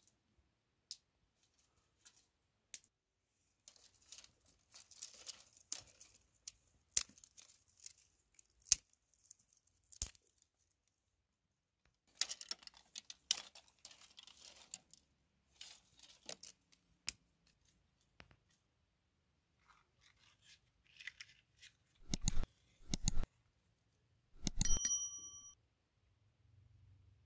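Dry twigs and brushwood snapping, crackling and rustling as they are broken and stuffed into a clay stove, with scattered sharp cracks. Two dull thumps come about two-thirds of the way in, followed by a short metallic ring.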